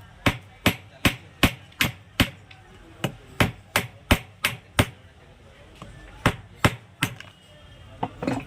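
Hammer blows knocking at a seized table-fan motor to force the jammed shaft free: a steady run of about a dozen sharp strikes, roughly two and a half a second, then a pause, two more blows, and a few lighter taps near the end.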